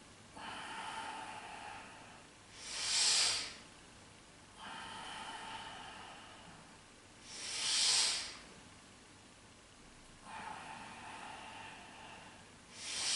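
A person breathing deeply through the nose in time with leg lifts: slow, quieter inhales alternating with short, forceful exhales, three exhales about five seconds apart.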